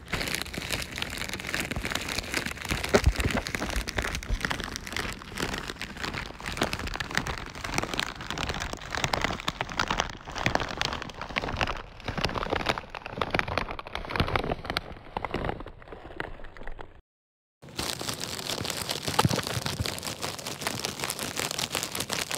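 Plastic rattle shaken continuously: a dense clatter of small pieces against plastic, broken by a brief silent cut about seventeen seconds in.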